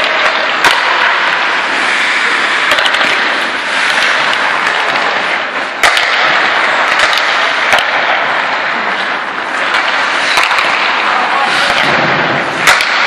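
Ice hockey skates scraping and hissing across the ice, with sharp clacks of sticks and pucks scattered through.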